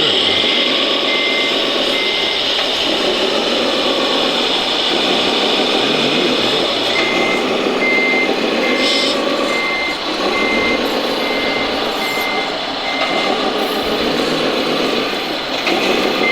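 Reversing alarm of a radio-controlled model truck or machine beeping steadily at about two beeps a second, stopping and starting again twice, over the continuous whir and grind of the models' small electric motors and gearboxes.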